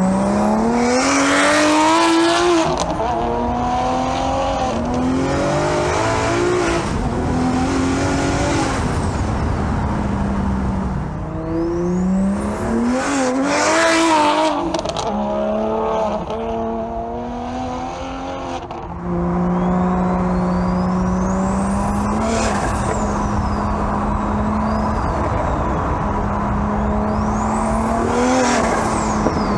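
BMW 1M's single-turbo N54 inline-six accelerating hard through several gears, its pitch climbing and then dropping at each shift, with a high turbo whistle rising and falling over it. In the second half it settles into a steady engine note.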